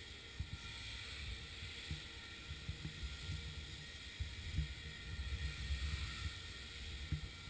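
Radio-controlled helicopter flying aerobatics, its motor and rotors giving a steady high whine, with low irregular rumbling on the microphone.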